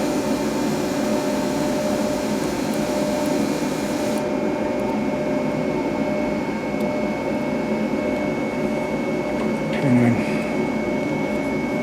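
Steady mechanical hum and whir of a machine running in the background, with a few fixed tones in it; its hiss thins out about four seconds in.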